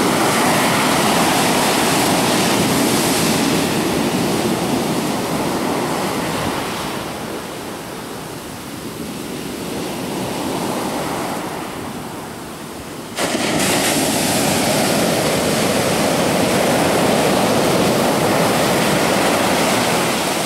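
Ocean surf: waves breaking and water rushing in, the roar easing off through the middle, then a big wave crashing abruptly about two-thirds of the way in and its wash rushing on loudly.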